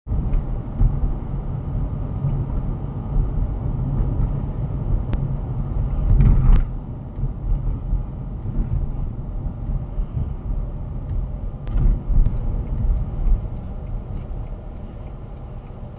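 Car cabin road noise picked up by a dashcam: a steady low rumble of tyres and engine as the car drives and slows, with short thumps about six and twelve seconds in.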